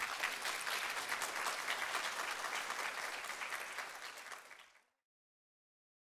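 Audience applauding: many hands clapping in a dense, even patter that fades away near the end.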